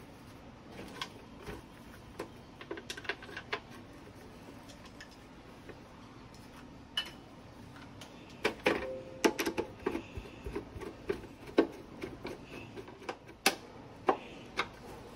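Screwdriver clicking and scraping as screws are driven into a mixer grinder's plastic base, along with knocks from handling the base. The ticks come irregularly, busiest around the middle, with one louder knock near the end.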